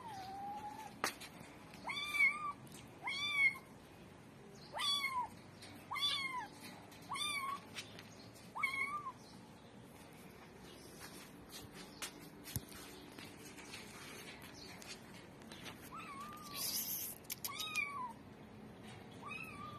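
Kitten meowing repeatedly: about ten short, high-pitched meows, each rising then falling in pitch. They come in a run over the first nine seconds and resume after a pause of several seconds.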